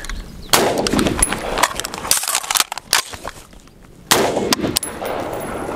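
AR-style rifle firing a single shot about half a second in, then a few smaller metallic clicks and clacks of an empty-gun magazine reload, and a second shot about four seconds in.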